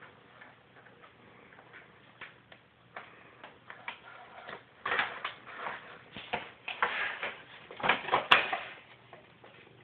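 Crumpled brown paper crinkling and rustling in short crackly bursts as a cat moves and plays underneath it, sparse at first and loudest from about five to eight and a half seconds in.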